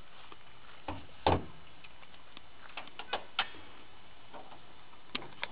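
A few short knocks and clicks at uneven intervals, the loudest about a second in, over a steady low hiss.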